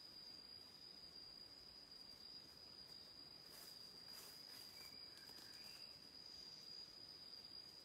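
Faint, steady insect drone held on one high note, with a few brief soft clicks about halfway through.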